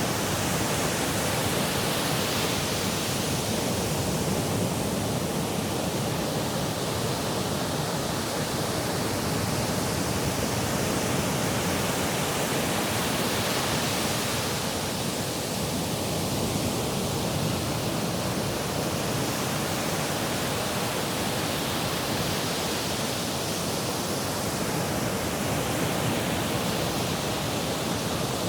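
Sea surf: a steady rush of water, its hiss swelling and easing slowly about every ten seconds as waves come in.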